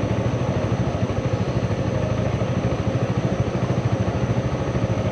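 Motorcycle engine running steadily while riding, with an even, rapid pulsing beat.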